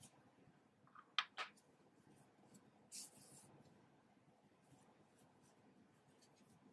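Near silence with faint handling sounds of a metal tapestry needle weaving a yarn end into crocheted fabric: two small sharp clicks about a second in, and a brief scratchy rustle about three seconds in.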